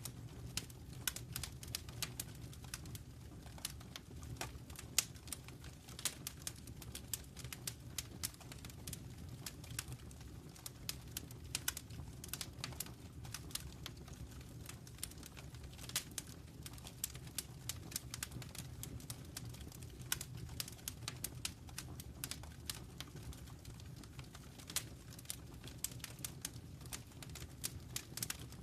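Wood fire crackling in a fireplace: irregular sharp pops and snaps, some louder than others, over a steady low rumble.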